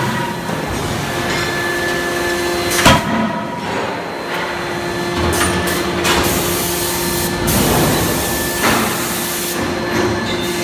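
Anyang C92K-31.5KJ CNC hydraulic die forging hammer striking hot steel: one sharp, loud blow about three seconds in, with a few lighter knocks later, over a steady machine hum.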